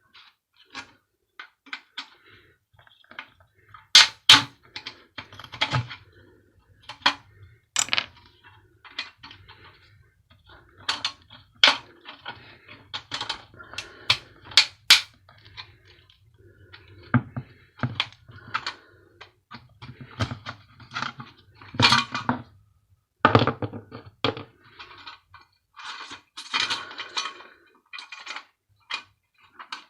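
Irregular metallic clinks, taps and knocks of hand tools and loose parts on the sheet-steel body of a small electric bar heater being taken apart for scrap, with a few louder clanks scattered through.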